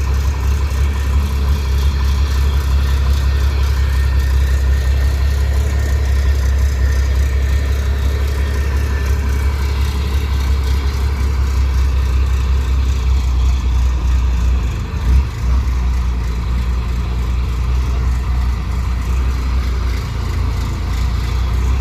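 Heavy vehicle's engine running steadily with a deep, low drone, with a brief change in level about fifteen seconds in.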